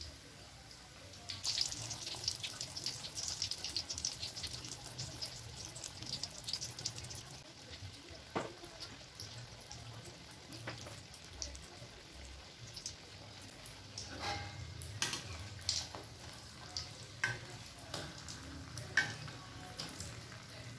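Martabak tahu (tofu and egg filling in spring-roll wrappers) deep-frying in hot oil in a wok, sizzling with a dense crackle. The crackle picks up about a second in, then thins out into scattered sharper pops.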